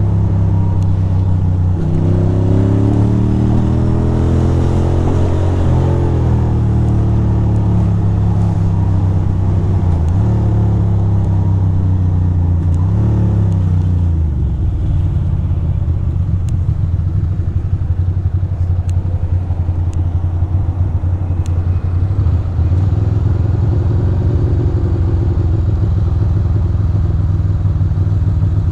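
2006 Ducati Monster 620's air-cooled L-twin engine riding through the revs, rising and falling several times, then dropping to a low idle with an uneven, lumpy beat about halfway through.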